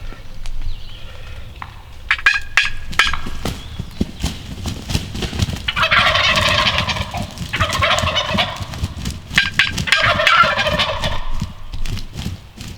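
Wild turkey gobbling loudly three times, roughly two seconds apart.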